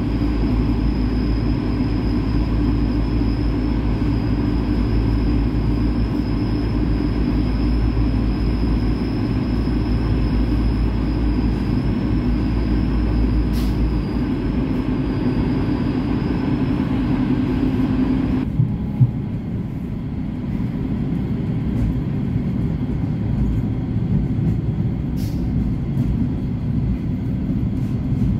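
Inside an ALn 668 diesel railcar on the move: a steady drone of its underfloor diesel engines mixed with wheel and rail noise, with a thin high whine over it. About two-thirds of the way through, the whine cuts off and the engine note drops, and a couple of light clicks follow.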